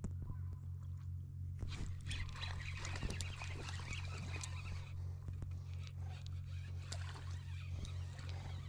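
Spinning reel and ultralight rod worked while a hooked fish, a drum, is played: a steady pulsing low whirr with scattered clicks and rustle.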